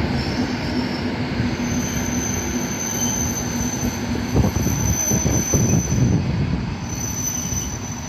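EN57 electric multiple unit rolling past, its wheels giving a steady high squeal on the rails, with a run of knocks from the wheels about halfway through; the sound fades near the end as the train moves away.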